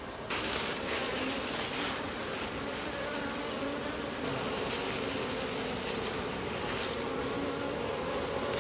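Wild honeybees buzzing around their opened ground nest: a steady, many-pitched hum of a whole colony.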